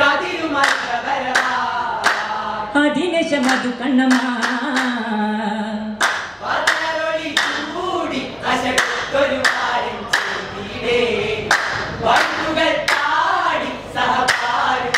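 Vattappattu: a group of young men sings a Mappila song together, unaccompanied, keeping time with rhythmic handclaps.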